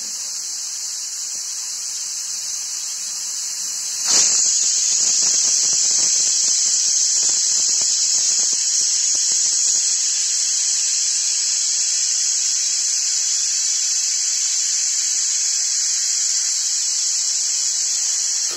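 Aluminium stovetop pressure cooker venting steam through its weight valve: a steady, high, hissing whistle that jumps louder about four seconds in and holds. This is the sign that the cooker is up to full pressure.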